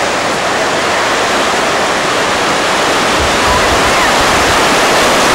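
Steady rushing of floodwater across a road. A car ploughs through the water close by, throwing up spray, and the noise grows a little louder about three and a half seconds in.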